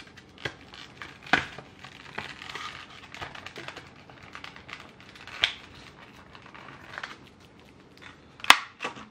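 Clear plastic lure package crinkling and crackling as it is handled and pulled open, with a few sharp snaps, the loudest near the end.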